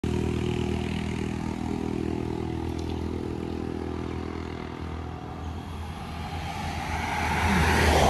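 Road traffic: a steady low engine hum that fades over the first few seconds, then a vehicle driving past close by, its tyre and engine noise swelling to the loudest point near the end.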